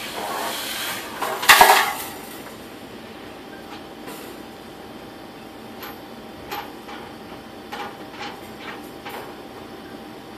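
Metal clanking and scraping as the sediment screen is pulled out of a steam autoclave's strainer housing. There is a loud rattle about a second and a half in, then a few light clicks and taps.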